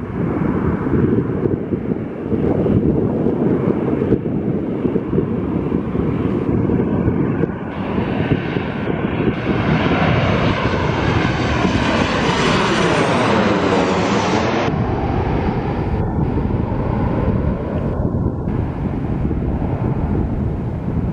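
Boeing 737 jet engines passing low overhead on landing approach. The whine and rush build to a loud peak, sweep down and back up in pitch as the plane goes over, then cut off suddenly about two-thirds of the way through, leaving a lower rumble as it heads away.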